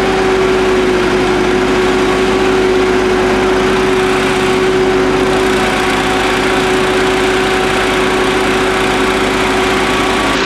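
Petrol-engined positive-pressure ventilation fan running steadily, a loud, unchanging engine drone that holds one constant pitch throughout.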